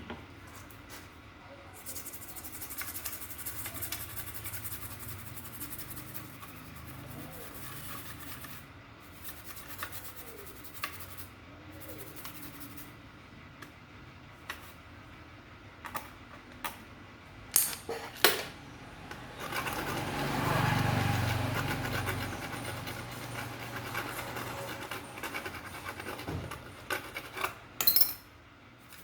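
Hand work on small parts: rubbing and scraping with scattered clicks and taps, and a louder stretch of rubbing about two-thirds of the way through.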